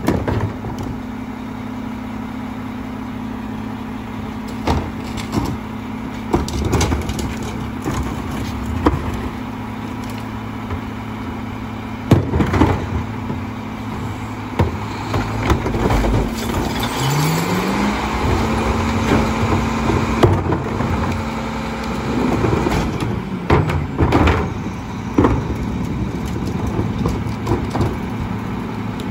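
Rear-loader garbage truck idling while plastic trash carts are tipped into its hopper, with scattered knocks and bangs of the carts and lids against the truck. About two-thirds of the way through, the engine revs up and holds for several seconds to drive the hydraulic packer blade, then drops back to idle.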